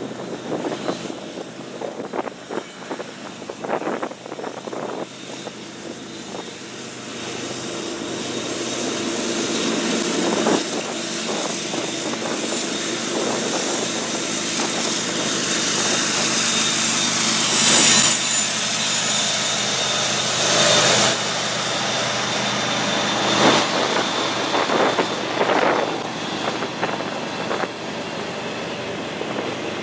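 CN freight train passing: the diesel locomotives' engines build up from about seven seconds in and are loudest as they go by. The freight cars' wheels knock and clatter over the rails after them.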